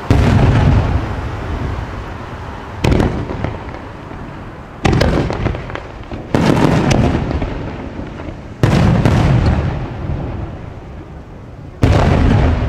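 Aerial firework shells bursting: six sharp booms one to three seconds apart, each trailing off in a long rolling echo, with crackling after some of the bursts.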